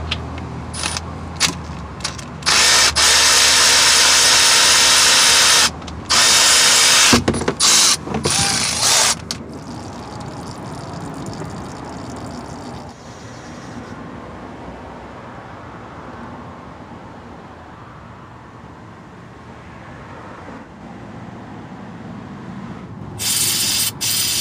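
Cordless electric ratchet with a 15 mm socket spinning out a car's oil pan drain bolt in several loud bursts, the longest about three seconds. After that comes a quieter steady noise as the old engine oil drains, and another loud burst near the end.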